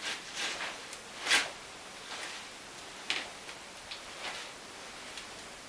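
Shoes scuffing and stepping on a concrete floor during footwork: a handful of short scrapes and taps, the loudest about a second and a half in.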